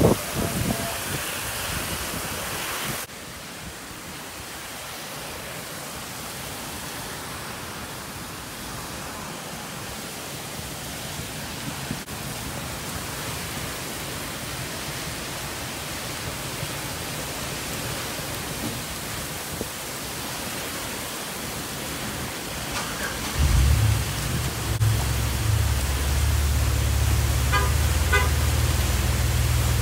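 Heavy thunderstorm rain falling steadily on pavement, abruptly quieter about three seconds in. About 23 seconds in, a loud low rumble sets in and continues under the rain.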